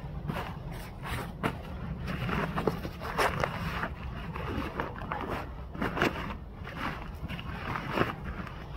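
British Army Gore-Tex bivy bag rustling and crinkling as it is unfolded and smoothed out by hand over a foam roll mat: a run of short, irregular scrapes over a steady low rumble.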